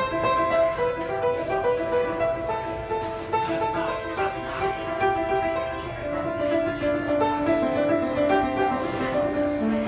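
Solo piano playing a steady stream of quick, overlapping notes over held lower notes.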